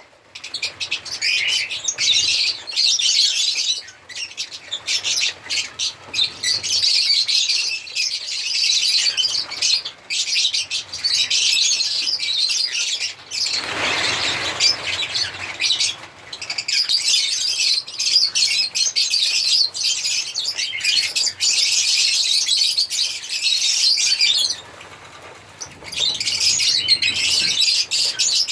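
Lovebirds chirping and chattering nonstop in rapid, high-pitched calls. About halfway through, a brief rush of wing flapping, and near the end a short lull before the chirping resumes.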